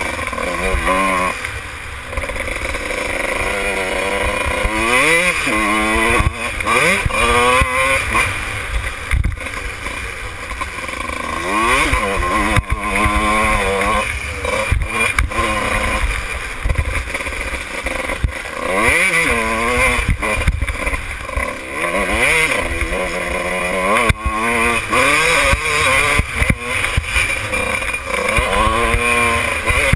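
Kawasaki KX125's single-cylinder two-stroke engine heard on board while riding, revving up again and again, its pitch climbing and then dropping with each gear change and throttle-off. A low rumble runs beneath, with scattered knocks.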